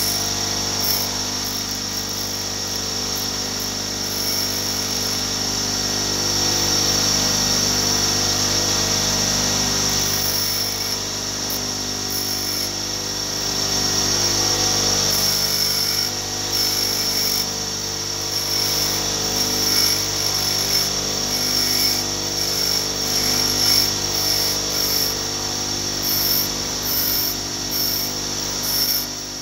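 Bench grinder running steadily with a constant motor hum while a thin steel wire is held against its abrasive wheel, grinding a hook point. A high grinding hiss comes and goes as the wire touches the wheel.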